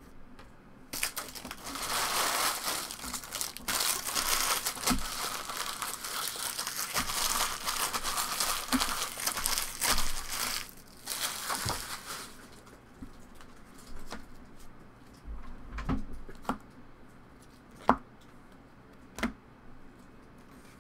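Empty Pokémon booster pack wrappers being crumpled and torn in the hands, a dense crinkling that starts about a second in and stops after about eleven seconds. A few separate light knocks follow.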